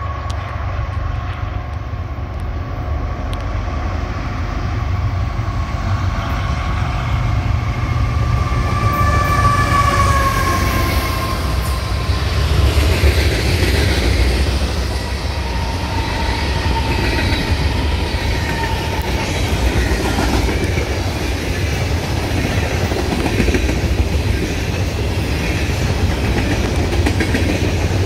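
CSX diesel freight train passing close by: the locomotive's horn sounds a chord of several tones as it approaches, its pitch dropping as the locomotive goes by about ten seconds in. After that comes a steady low engine rumble and the clickety-clack of freight cars rolling past.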